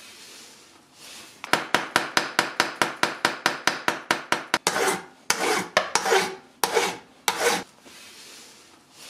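A small hammer tapping a brass piece clamped in a steel bench vise: about twenty quick, even taps at some six a second. These are followed by five longer scraping strokes on the metal.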